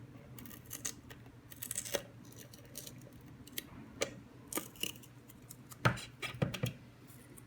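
Adhesive tape being peeled off the pump of a plastic Petlibro cat water fountain: irregular crackles and short rips, with a couple of louder plastic knocks about six seconds in.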